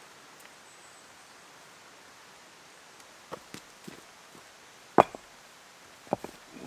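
A few footsteps on forest litter and stones, then a single sharp knock about five seconds in and two or three more knocks shortly after: a hand-held stone striking a tarp stake to drive it into the ground.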